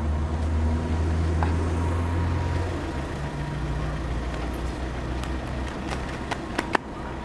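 A car engine running at idle, a steady low hum that eases off a little about two and a half seconds in. A few sharp clicks come in the second half.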